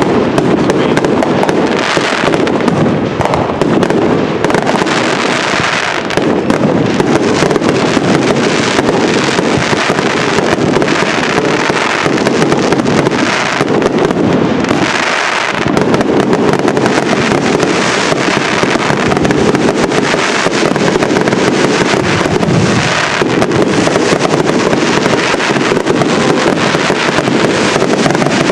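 Fireworks finale: a dense, continuous barrage of overlapping bangs and crackle with no pauses.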